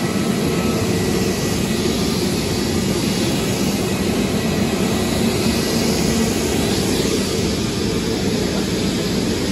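Steady jet aircraft noise from an airliner on the apron, an even, unchanging rush of sound.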